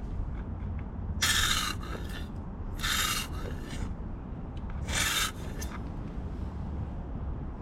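Three short rasping rubbing strokes, each about half a second, over a low steady hum.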